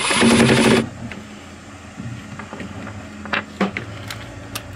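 A 13 mm socket tool loosening a bolt: a loud burst of rapid mechanical clicking lasting under a second at the start, then a few light clicks and taps over a steady low hum.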